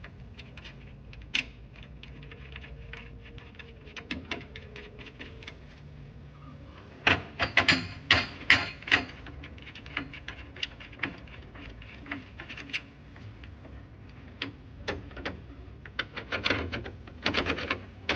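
Scattered clicks and knocks of bed-frame and lift-mechanism parts being handled and fitted together. A run of louder knocks comes about seven to nine seconds in, and another near the end.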